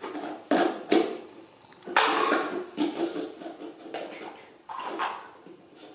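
Hard plastic toys knocking and clattering against each other and the tiled floor, several sharp knocks with some scraping in between.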